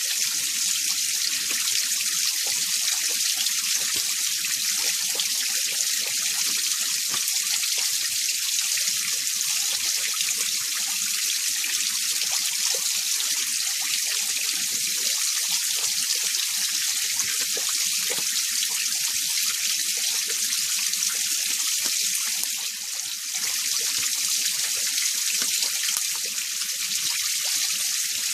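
Winter mountain stream running over rocks: a steady hissing rush of water, dipping slightly for a moment about two-thirds of the way through.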